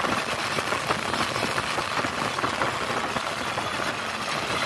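Single-cylinder diesel engine of a hand tractor running steadily as the tractor works through a flooded rice paddy.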